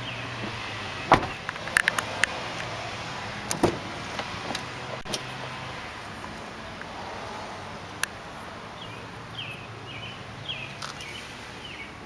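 Hummer H2 doors being handled: a door shuts with a thump about a second in, followed by scattered latch clicks and knocks over a low steady hum. Near the end comes a run of short high chirps, about two a second.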